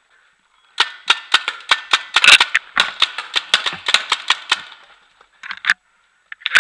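Paintball markers firing in rapid strings of sharp pops, about four or five shots a second, starting about a second in and stopping a little past the middle, then a few more shots near the end.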